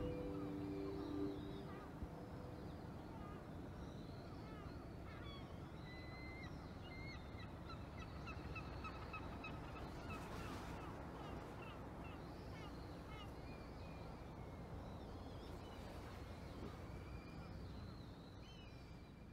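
Small birds chirping and twittering over steady low outdoor background noise by the sea. A low held tone trails off in the first second or two, and the sound fades out near the end.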